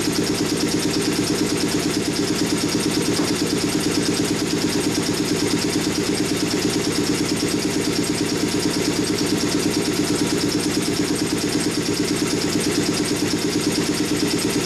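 Vacuum pump of a CNC router's hold-down system running steadily: a low hum with a fast, even pulse and a hiss above it.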